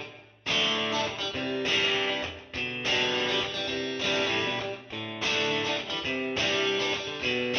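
Background music: strummed guitar chords with a steady rhythm.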